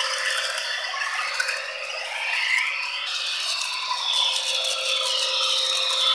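Model train running on track: a rattle of wheels on the rails with a motor whine that rises and falls in pitch.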